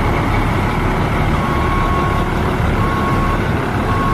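Heavy truck engine running with a steady rumble while its reversing alarm beeps, starting about a second and a half in and sounding three times, each beep a little under a second long.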